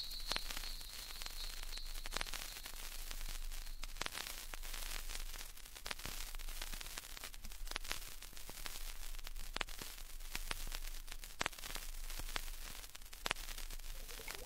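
Vinyl record surface noise: a steady hiss with a low hum under it and irregular sharp clicks and pops from the groove, with no effect playing.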